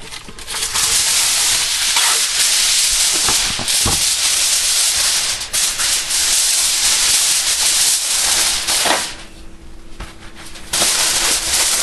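Aluminum foil crinkling and rustling as it is crumpled and pressed over a roast turkey in its pan, a loud dense crackle with a short lull about nine seconds in.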